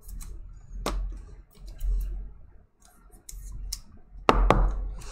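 Baseball trading cards being handled and shuffled in the hands: light clicks and flicks of card stock sliding against card stock, with a sharper click about a second in. Near the end comes a louder stretch of rustling and scraping.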